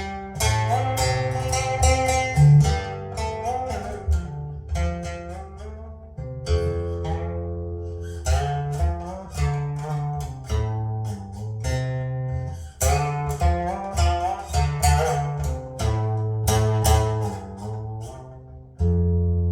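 Guitar music: plucked notes in quick runs over sustained bass notes.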